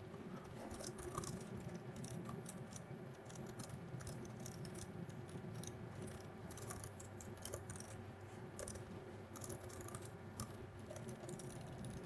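Typing on a computer keyboard: faint, irregular key clicks.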